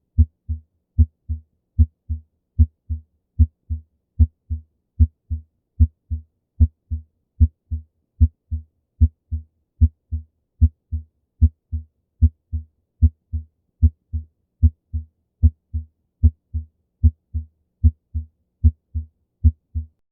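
Normal human heart sounds heard through a stethoscope: a regular 'lub-dub', the first sound (S1) from the mitral and tricuspid valves closing and the second (S2) from the aortic and pulmonary valves closing. The beat is steady at about 75 a minute.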